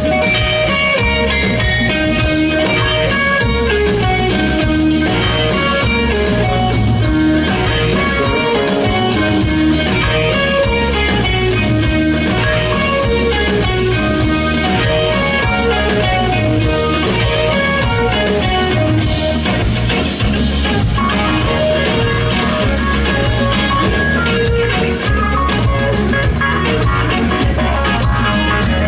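Live rock band playing an instrumental passage: guitar lines over drums and a steady low rhythm.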